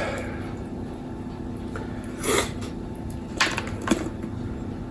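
Wires and connectors being handled by hand: a short rustle about two seconds in, then two sharp clicks, over a faint steady hum.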